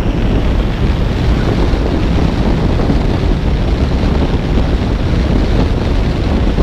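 Steady wind buffeting on the microphone over a low rumble, with no engine note or revving standing out.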